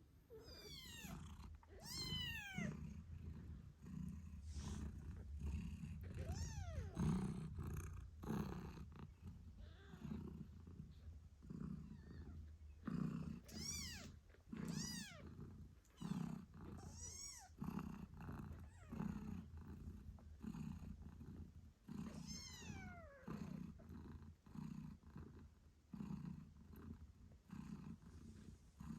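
British shorthair mother cat purring in a steady, rhythmic pulse. Over the purr, her eight-day-old kittens give high, squeaky mews that slide down in pitch, a few near the start and several more around the middle.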